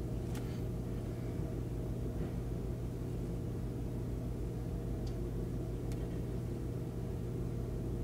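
Steady low electrical hum over faint background noise, with a few faint small ticks.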